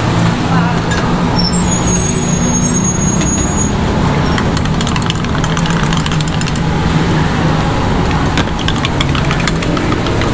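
Street traffic with a vehicle engine running, a steady low hum. From about halfway in, a quick run of sharp clicks and clinks sounds over it.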